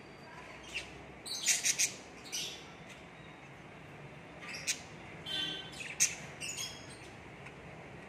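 Cockatiels calling in short, high chirps and squawks: a quick run of three loud calls about a second and a half in, then a scattered string of calls through the middle and latter part.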